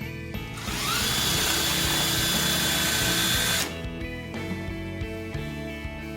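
Electric drill spinning up with a rising whine, running steadily for about three seconds, then stopping, over background music.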